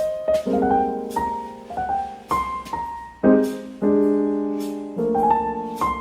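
Background piano music: chords and single notes struck and left to ring, a new note or chord about every half second to second.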